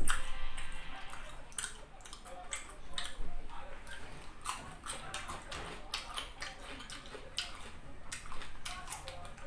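Fresh cucumber slices bitten and chewed close to the microphone: wet crunching and smacking mouth sounds, with a loud bite right at the start.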